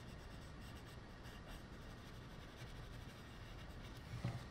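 Faint scratching of a coloured pencil shading on sketchbook paper, with a single soft knock near the end.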